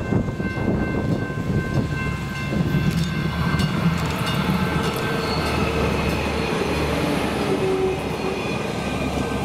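Stadler GTW diesel multiple unit passing close by, its diesel engine running and its wheels rolling over the rails.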